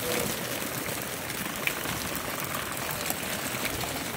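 Steady splashing and pattering of seawater and small fish as a fishing net is hauled aboard, with a few faint clicks.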